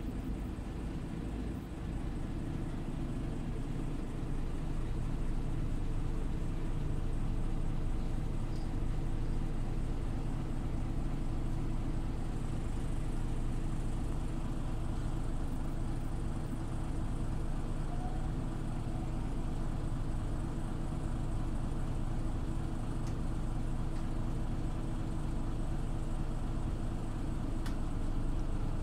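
Scania OmniLink CL94UB city bus running along the road, heard from inside the passenger cabin: a steady low engine drone mixed with road noise, a little louder after about two seconds, with a few faint clicks near the end.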